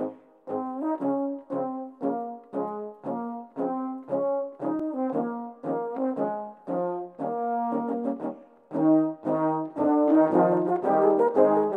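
Brass ensemble playing a march, every part multitracked by one player: short, detached chords about twice a second over a bass line. About nine seconds in the band comes in louder and fuller.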